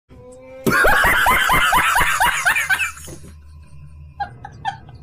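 A man laughing loudly in a rapid run of high-pitched bursts for about two seconds. Shorter, quieter bursts of laughter follow near the end.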